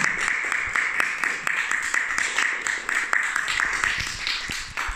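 Small audience applauding, a dense patter of hand claps that thins out and fades near the end.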